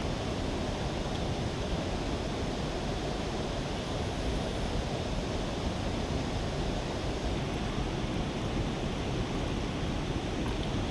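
Steady rush of a river waterfall, an even noise that does not change.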